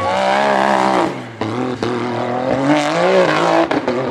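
A UTV's engine revving hard at full throttle as it climbs a steep dirt hill, its pitch rising and falling, dipping briefly about a second in and then climbing again. A few sharp knocks near the end.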